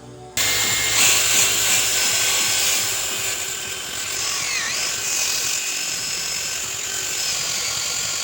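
Power tool running steadily at high speed, switched on about half a second in, with a brief dip in pitch midway as it takes load.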